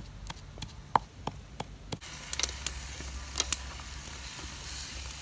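A wooden pestle pounding in a clay mortar, about three strokes a second. About two seconds in, this gives way to a steady hiss of gourd pieces frying in a wok, with scattered clicks as wooden chopsticks stir them.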